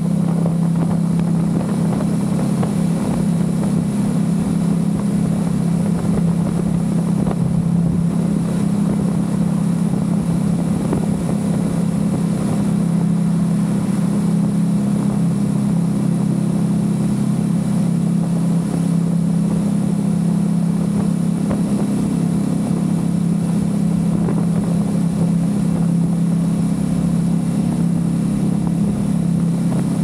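Aprilia RS660's 659 cc parallel-twin engine through a Mivv Delta Race aftermarket exhaust, pulling at a steady cruising speed with an even, unchanging engine note, inside a road tunnel.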